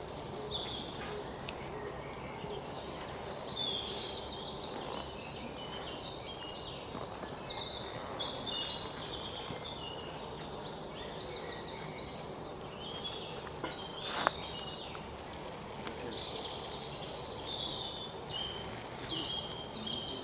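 Birds chirping and trilling again and again over a steady background hiss. Two sharp clicks stand out, one shortly after the start and one about two-thirds of the way through.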